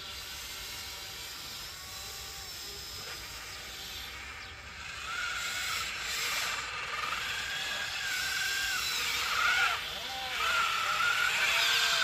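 Electric motors and gearboxes of a radio-controlled scale construction machine whining. The whine starts about five seconds in and steps up and down in pitch as the controls are worked.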